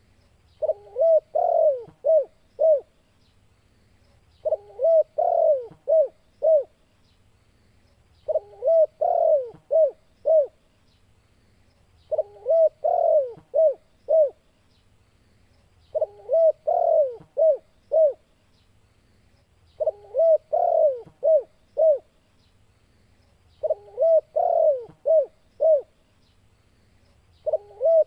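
Spotted dove (tekukur) singing its cooing phrase of about five to six coos, the 'kuk 2' song type, repeated about every four seconds.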